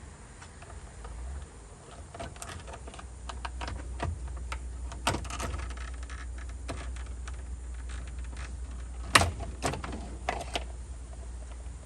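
Irregular light clicks and taps of hand tools and small parts being handled while working a screw loose, with a sharper knock about nine seconds in, over a steady low hum.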